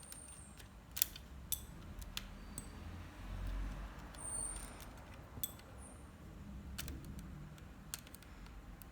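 Plastic Lego parts of a model helicopter clicking and rattling faintly as it is handled and its mechanism turned by hand, with a few sharp clicks and a low rumble of handling noise.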